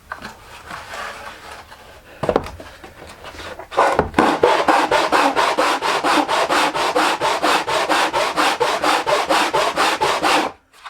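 A wooden resonator-guitar rim is being sanded flat by rubbing it back and forth on sandpaper over a flat granite slab, leveling the edge until the pencil marks are gone. The sanding is slower and softer at first, then about four seconds in becomes fast, regular strokes, several a second, and stops abruptly just before the end.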